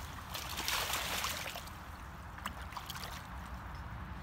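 Water splashing in shallow lake margin as a common carp kicks free of a wet retention sack, a burst of splashing about half a second in followed by quieter sloshing and drips.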